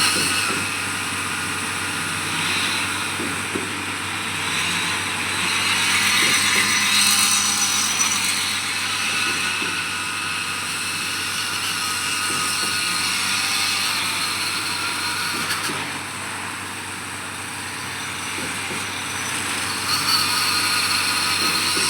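Steady engine and machinery noise from concrete pouring work, running without a break and swelling slightly now and then.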